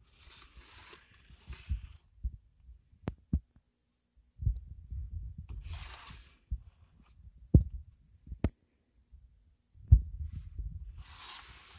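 Cardboard toy boxes being handled and moved about on a countertop: three stretches of rubbing and scraping noise, several sharp light knocks, and low thumps of handling close to the microphone.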